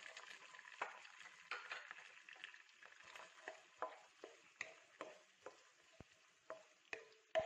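Chopped shallots and curry leaves frying in hot coconut oil in a nonstick kadai, a faint sizzle under a spatula tapping and scraping against the pan about twice a second.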